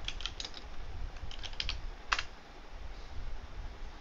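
Typing on a computer keyboard: a few quick runs of keystrokes, with one louder single key press about two seconds in.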